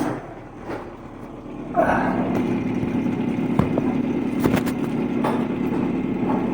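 A motor starts about two seconds in and runs at a steady pitch, with a couple of sharp metallic knocks over it.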